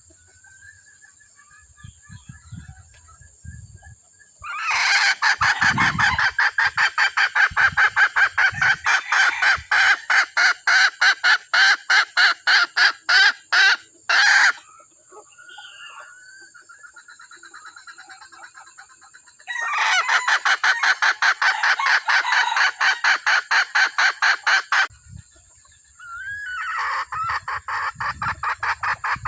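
A decoy hen calling in a coop: long runs of rapid clucks, about five a second, in three bouts of several seconds each, with quieter calls in the gaps between.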